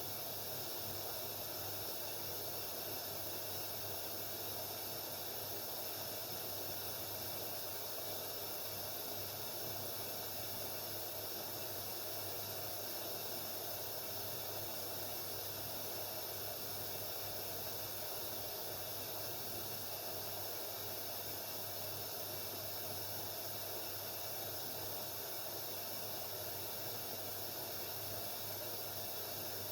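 Haier 7.5 kg front-loading washing machine running through a delicate wash cycle: a steady hiss over a low hum, with no tumbling rhythm or pause.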